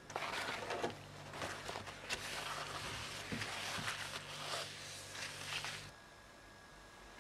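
Rustling and scraping of a hand working a paper tissue on a kitchen countertop, with a few sharp clicks and a steady low hum underneath. All of it cuts off abruptly about six seconds in.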